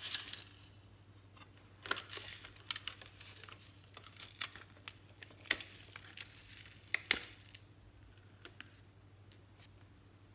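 Foam beads and glitter on glossy slime crunching and crackling as a plastic toy clock is pressed down into them. A loud crackling rush opens it and fades within a second, then irregular sharp crackles and clicks follow and die away about three-quarters through.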